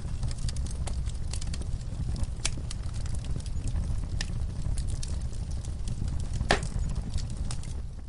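Crackling fire: a steady low rumble of flames with scattered sharp pops and snaps, one louder pop about six and a half seconds in.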